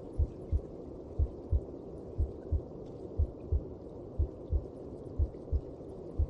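A human heartbeat as heard inside the mother's belly: a steady lub-dub double beat about once a second, low thumps over a steady hum.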